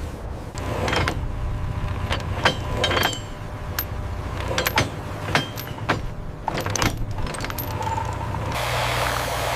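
A series of sharp clicks and knocks over a steady low hum. About eight and a half seconds in, the clicks stop and a steady rushing hiss takes over.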